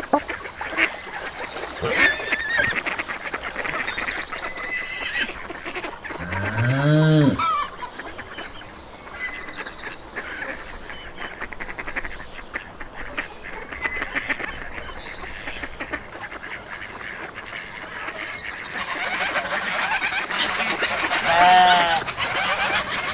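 Farmyard ambience of geese honking, with small birds chirping behind them. A single loud, low call rises and falls about seven seconds in, and a quick run of honks comes near the end.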